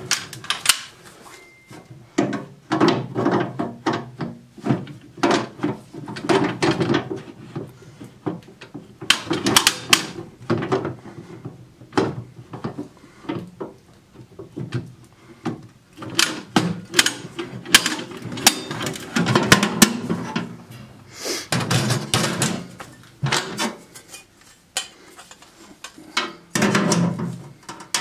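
Steel ammo-tin stove being handled with gloved hands: a run of metallic knocks, clicks and clatter as the lid and parts are moved, shut and set down on the bench.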